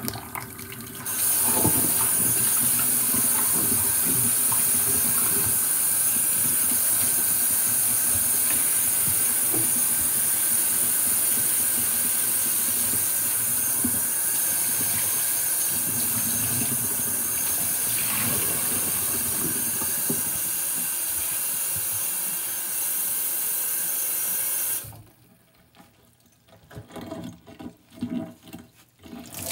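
Kitchen tap running steadily into a stainless steel sink over sponges, a loud hiss of water that starts about a second in and is shut off sharply near the end. After it, quieter irregular squishing of wet sponges being pressed by gloved hands.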